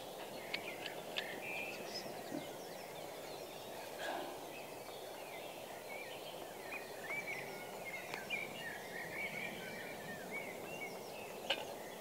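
Small birds chirping and singing over a steady background rush, with a few faint clicks and taps as a camping pot and stove are handled.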